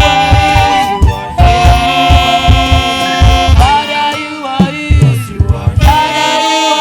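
Saxophone playing long held melodic notes, one with a wavering vibrato, over a live band with a steady kick drum. The drum drops out a little over halfway through, leaving the held notes.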